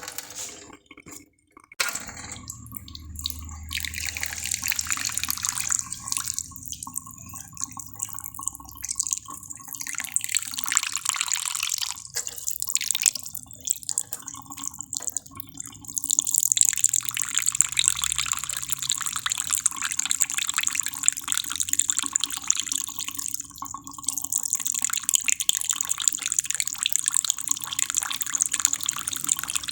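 Water running and dripping steadily, cut off briefly about a second in.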